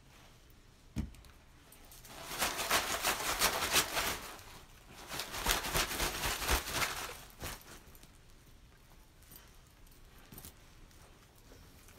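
A deck of cards being shuffled off-camera in two bouts of about two seconds each, with a single knock about a second in and a few light clicks.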